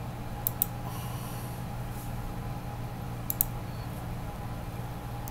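Steady low electrical hum with two quick double clicks, about half a second in and again a little past three seconds.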